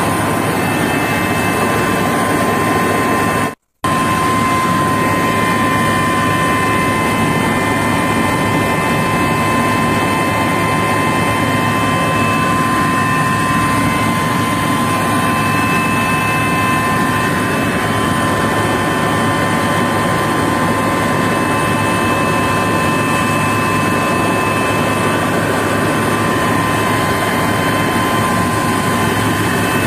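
Helicopter cabin noise: the turbine whine and rotor drone run loud and steady, with a high tone held throughout. The sound cuts out for a moment about three and a half seconds in, then carries on unchanged.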